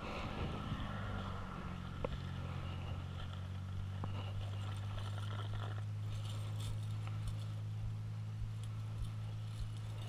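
A steady low mechanical hum, like an engine running at an even speed, settles in about a second in and holds without change. Over it come a few sharp small clicks and light rustling.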